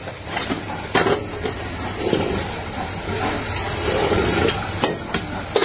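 Aluminium kadhai being handled: a few sharp metal clicks, one about a second in and three near the end, over a steady workshop machine hum and noise.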